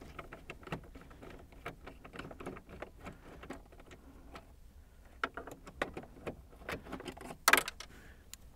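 Light clicks and ticks of a hand driver backing out a 7 mm instrument-cluster mounting screw in a plastic dashboard. Near the end, a louder brief clatter as the loosened screw drops onto the radio.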